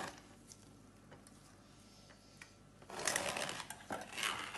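Hand-cranked stainless-steel food mill pressing cooked potatoes through its perforated disc: near quiet at first, then from about three seconds in a fast, rasping clatter of the blade scraping round against the metal sieve.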